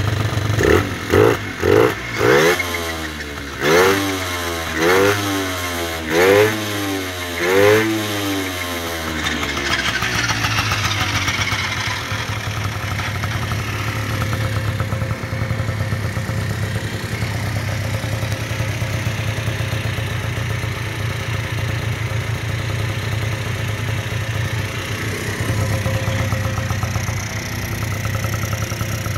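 Tomos moped's two-stroke engine, built to 70cc with a 17mm carburettor, on its first run. It is blipped about seven times, each rev rising and falling, three in quick succession and then four spaced out. About ten seconds in it settles into a steady idle.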